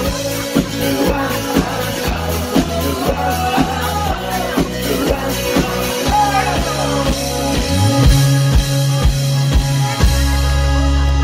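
Live pop-rock band playing, with drums beating about twice a second over steady bass notes; about eight seconds in a low note slides up and is held.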